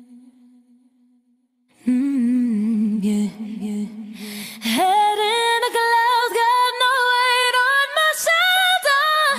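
Isolated female pop lead vocal with no backing track. A low held note fades away, then after a brief silence she sings a low phrase with a wavering pitch, and about halfway through jumps up to a higher sung line of short held notes.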